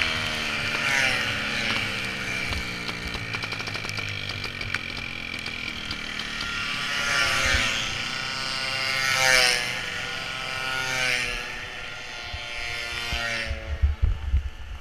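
Solex moped engine after a second ignition cut-out, blamed on the wet conditions: its whine falls away in pitch as the bike coasts. Other Solex racers whine past, rising and falling, and there are a few knocks near the end as the bike is brought up against the tyre barrier.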